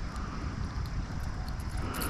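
Wind rumbling on the microphone, with faint small clicks and rustles from hands working the line and lure.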